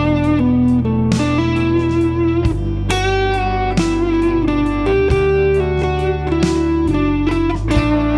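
Electric guitar playing a single-note lead melody from the D major pentatonic scale with an added G note, over a backing track of the A–Em–G–D chord progression. The bass and chords change about every two to two and a half seconds.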